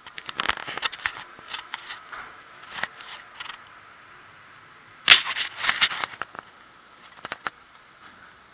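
Irregular sharp clicks and knocks from a person walking on a ship's steel deck with a body-worn camera, footstep and handling noise, loudest in a cluster about five seconds in.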